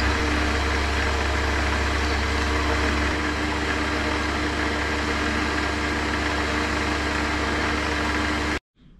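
Metal lathe running steadily with a motor hum and gear whine while a center drill in the tailstock chuck spots the center of a spinning metal workpiece. The sound cuts off suddenly near the end.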